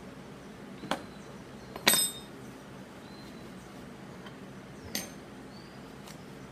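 Three sharp metallic clinks of a small metal tool against the brass torch parts, the middle one loudest and ringing briefly.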